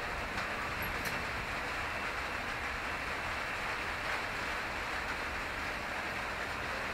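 Steady hiss of rain falling, with wind.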